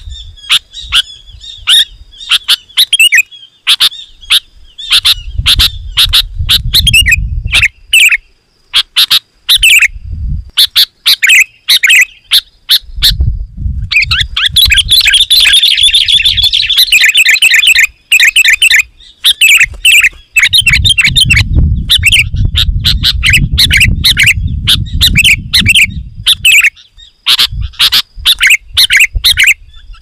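Sooty-headed bulbul singing loudly and almost nonstop: quick runs of sharp chirping notes, thickest as a dense chatter about fourteen to eighteen seconds in. Stretches of low rumble run underneath at times.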